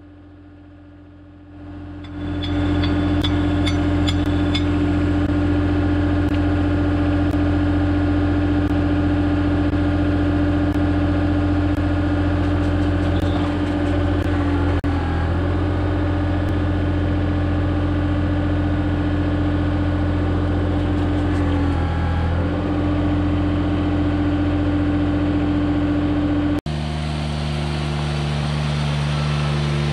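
John Deere 755 compact tractor's three-cylinder diesel engine running steadily under load while pulling a road drag over stone. It comes in about two seconds in, with a few faint ticks and rattles early on, and its tone shifts suddenly near the end.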